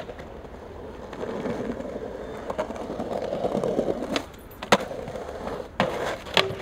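Skateboard wheels rolling over rough pavement, the rolling noise growing over the first few seconds. This is followed by sharp wooden clacks of the board hitting the ground, the loudest a little past the middle and a couple more near the end.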